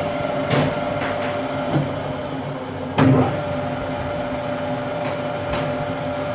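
Metal lathe running at a steady speed, with a steady tone, as a cutting tool turns the centre of a spinning square metal block and peels off curled chips. A few sharp knocks sound now and then, the loudest about three seconds in.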